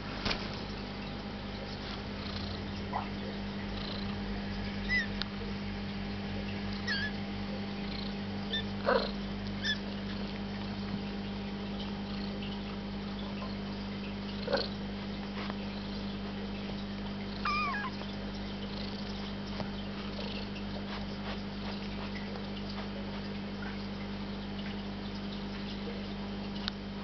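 Small kittens mewing: about half a dozen short, high calls that bend in pitch, scattered now and then over a steady low hum.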